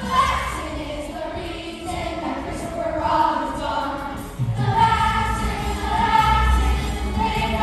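A chorus of young voices singing together over musical accompaniment, a song-and-dance number; a heavier bass line comes in about halfway through.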